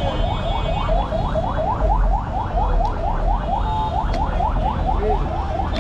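An electronic alarm chirping in quick rising sweeps, about four or five a second, over steady road-traffic rumble.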